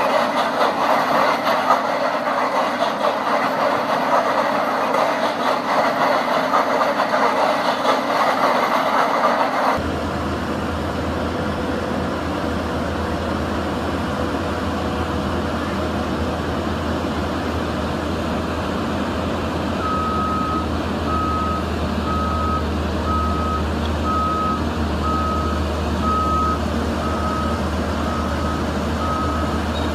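A loud, noisy mechanical din for about the first third, then, after an abrupt change, a heavy vehicle's engine running steadily with a low hum. About two-thirds of the way through, its reversing alarm starts beeping at one steady pitch, roughly once a second.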